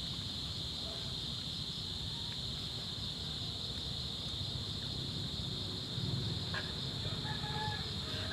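Crickets or other insects calling in a steady high-pitched chorus over a low rumble, with a few faint short calls near the end.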